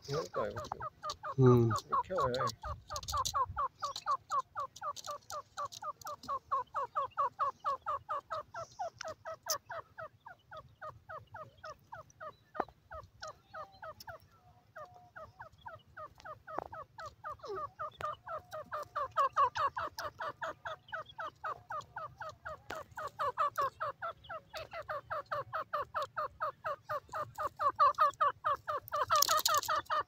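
Grey francolin (teetar) calling: a fast, steady run of short repeated notes, about four or five a second, which lapses for a moment near the middle and then carries on.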